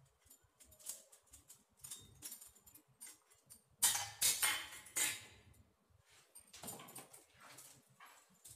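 Stainless-steel idli plates clinking and scraping on a granite counter as they are handled and set down, with small clicks throughout. The loudest clatter comes about four seconds in, and a smaller one just before seven seconds.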